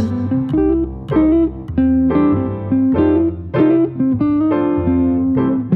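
Instrumental break in a gentle devotional song: a guitar picking a melody of plucked, ringing notes over a bass line, with no singing.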